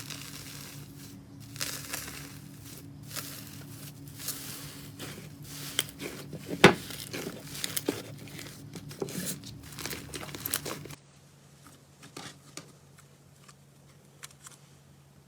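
Slime being squeezed and stretched by hand, with dense crackling and crinkling clicks. About 11 seconds in it cuts to a quieter stretch with only occasional clicks.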